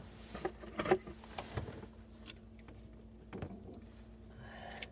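Gloved hands handling braided steel supply hoses at a plastic bucket: a few light knocks and rustles, the loudest about a second in.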